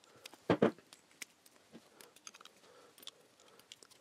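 Small metal clicks and taps of a brass carburettor slide and its spring being handled and fitted into the carburettor body, with a louder pair of clicks about half a second in and lighter ticks after.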